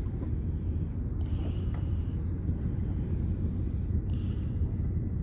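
Fishing boat's engine idling: a steady low rumble.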